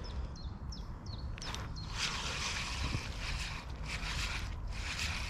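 Spinning reel being wound in short bursts, giving a whirring roughly every three-quarters of a second, over a low rumble. A small bird chirps a few times near the start.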